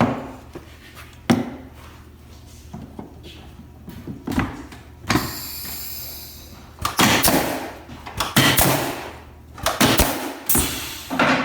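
Wooden beehive frame parts knocking as they are handled and set into a jig, then several hissing bursts from the jig's air-powered staplers firing into the frames.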